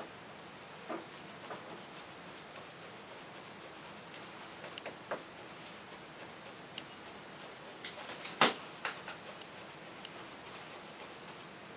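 A paint brush dabbed against a fascia board with punching strokes: a few scattered light taps and clicks over a steady faint hiss, the loudest a sharp tap about eight and a half seconds in.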